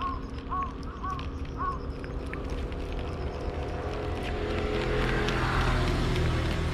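A vehicle passing by, its noise swelling to a peak and easing off, over a steady low hum of traffic. In the first two seconds there are short, evenly spaced chirps, about two a second.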